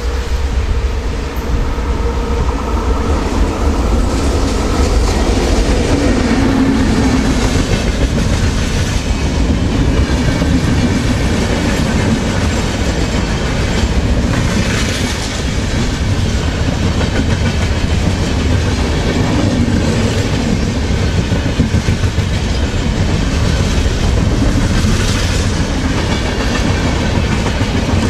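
Express passenger train hauled by a WAP-7 electric locomotive passing at speed, close by: a steady loud rumble with the clickety-clack of the coaches' wheels over rail joints.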